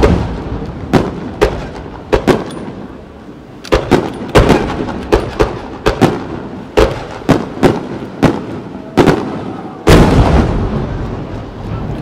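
Aerial firework shells launching and bursting in a rapid, irregular run of sharp bangs, each trailing off in an echo. A bigger bang about ten seconds in has a long rolling decay.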